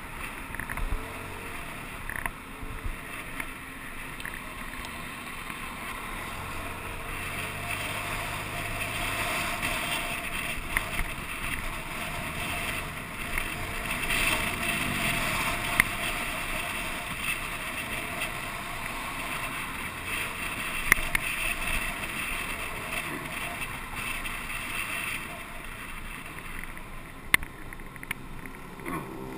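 Steady wind and road noise from a camera riding on a moving vehicle in traffic, with a couple of sharp clicks in the last third.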